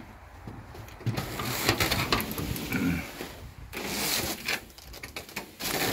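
A door being opened and someone stepping through it: irregular rattling, knocks and rustling as the camera is carried in, with a couple of sharper clicks near the end.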